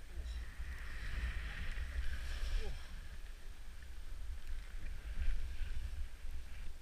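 Skis hissing steadily as they slide over snow, under a low wind rumble on the microphone.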